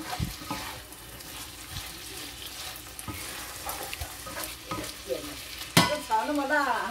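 Diced tempeh frying in a nonstick wok, stirred and scraped with a wooden spatula, with scattered clicks of the spatula against the pan and one sharp knock near the end.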